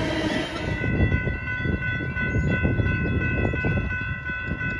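Metrolink commuter train rolling through a grade crossing, with a low rumble and rapid wheel clicks. About a second in, the high rushing noise of the passing cars drops away and a steady chord of high ringing warning tones stands out over the rumble.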